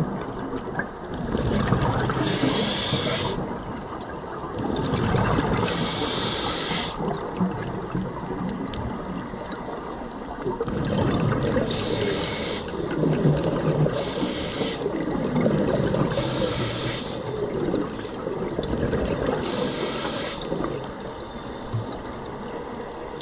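Scuba diver breathing through a regulator underwater: a short hissing inhale about every three to four seconds, each followed by a long bubbling rush of exhaled air.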